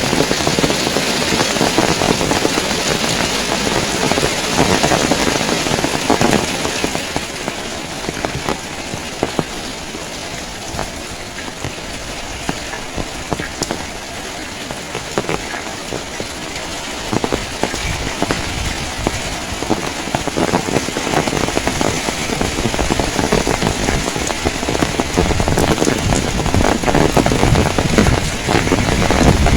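Heavy rain falling and pattering in dense drops, with a low rumble of strong wind. It eases somewhat partway through, then builds again toward the end.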